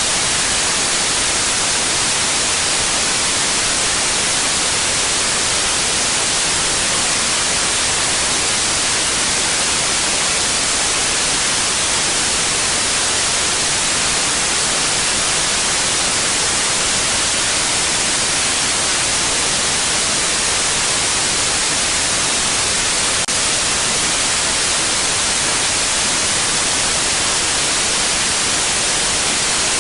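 Steady white noise: an even, unchanging hiss, brightest in the high end, with no breaks or events.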